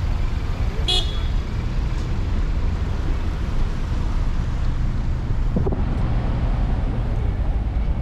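Street traffic with a steady low rumble, and a short high beep about a second in, like a quick horn toot.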